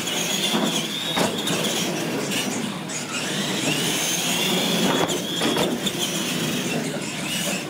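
Electric R/C monster trucks racing on a concrete floor: motor and gear whine rising and falling with the throttle over tyre noise, with a few knocks.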